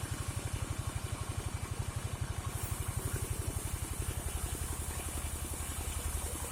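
Engine of a portable sawmill running steadily, with a fast, even chugging pulse of roughly a dozen beats a second and no cutting heard.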